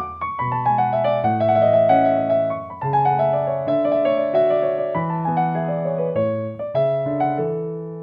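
Background piano music: a solo piano playing flowing runs of notes that step downward in pitch.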